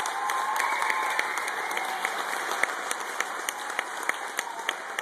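Audience applauding, with many separate claps standing out; the applause gradually thins and fades.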